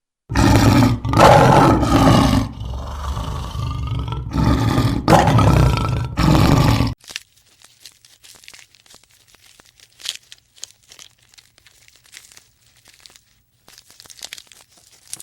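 A big cat roaring loudly for about seven seconds, easing off briefly in the middle, then going quiet apart from faint scattered ticks and rustles.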